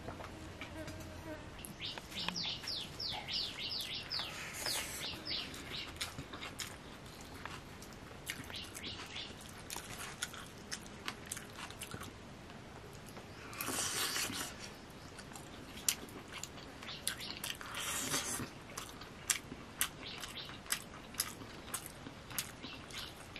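Eating by hand: wet squishing of rice and curry being mixed, and sharp smacking clicks of chewing. About two seconds in a bird gives a quick run of falling chirps for a few seconds, and there are two brief louder rustles near the middle.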